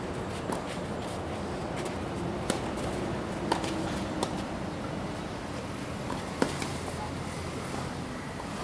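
Tennis rally on a clay court: several sharp pops of racket strings striking the ball, irregularly spaced a second or more apart, over a steady background hum.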